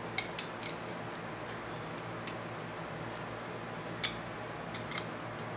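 A few light metallic clicks of tongue-and-groove pliers against a steel bolt, nut and disk being handled: three quick clicks just after the start, a single one about four seconds in, and a faint one near the end.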